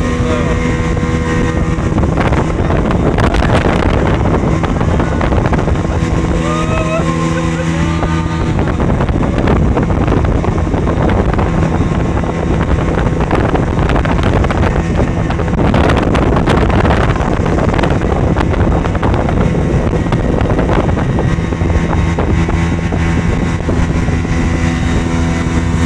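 Jet ski engine running steadily under way, with water rushing and wind noise on the microphone, heaviest through most of the middle stretch.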